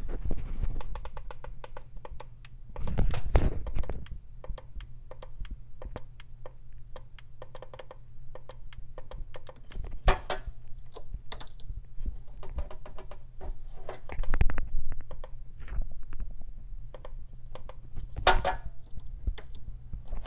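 Irregular light clicking and tapping with a few louder knocks, from a fuel injector tester and its leads being handled, over a faint low steady hum.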